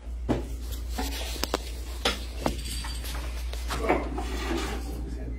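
Handling and movement noise: scattered knocks and clicks with some rubbing, over a steady low hum.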